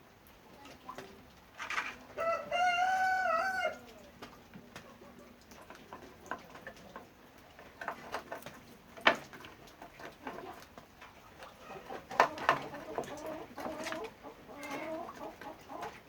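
A rooster crows once, about two seconds in, for about a second and a half, with scattered short chicken clucks and a few sharp knocks around it.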